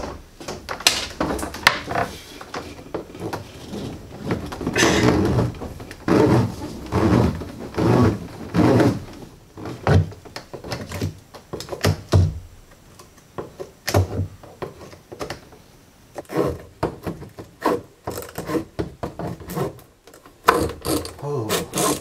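Blue corrugated plastic electrical conduit (Smurf tube) being fed up through a hole in the ceiling framing. It scrapes and rattles against the wood in irregular bursts, with knocks.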